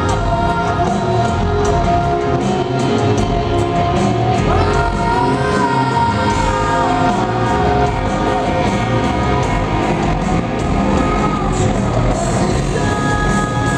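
Live rock band playing loud: electric guitar and drums with a voice singing, heard from within the audience in a hall. Notes are held, and one slides upward about four and a half seconds in.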